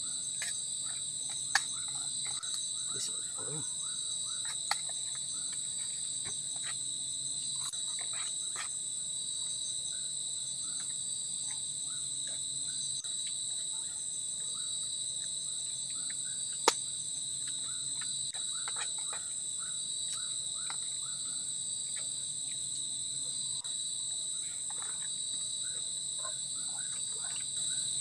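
Steady, high-pitched chorus of forest insects droning without a break, with a few sharp clicks scattered through it, the loudest about a third of the way in and just past halfway.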